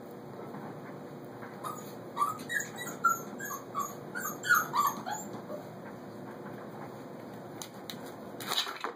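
Four-week-old puppies giving a quick run of short, high yips and squeals while tussling, from about two seconds in to about five seconds in. A brief scuffling noise near the end.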